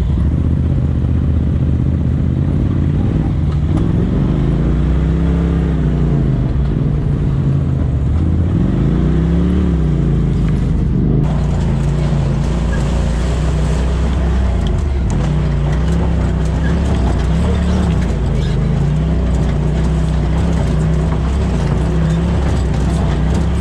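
Polaris RZR side-by-side's engine running under way, its note rising and falling several times as the throttle goes on and off. The sound changes abruptly about eleven seconds in.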